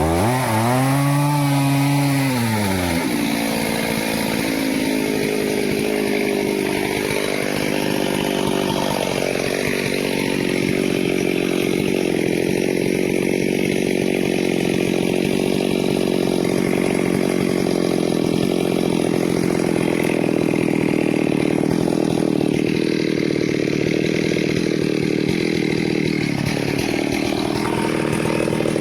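Stihl chainsaw revving up and back down in the first few seconds, then running at high speed while cutting teak wood, its pitch sagging briefly a couple of times as the chain bites into the wood.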